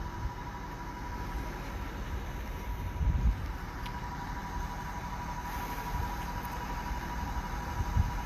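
Steady low background rumble and hiss with a faint steady high tone, and a low thump about three seconds in and another near the end.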